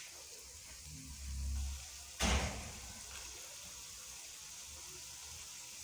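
Hot oil sizzling faintly around drop maandazi dough frying in a pan. A low rumble comes about a second in, and a single sharp knock just after two seconds is the loudest sound.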